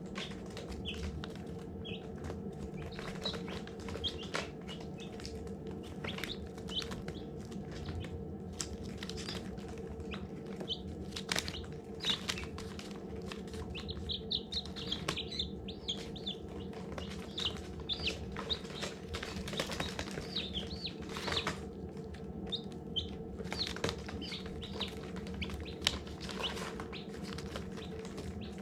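Baby chicks peeping: many short, high chirps, some in quick runs, over a steady low hum, with scattered sharp clicks and taps.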